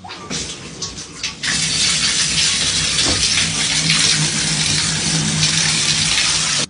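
Water from a bathtub tap running into the tub, quiet at first and then gushing steadily at full flow from about a second and a half in.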